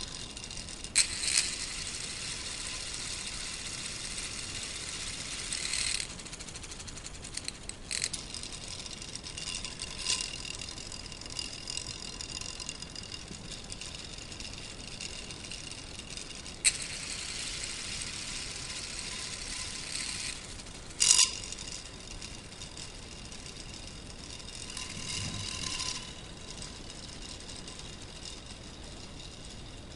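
Plastic gears of a K'nex bus chassis' two-speed gearbox and drive train rattling as it runs, in stretches of a few seconds, with several sharp clicks between.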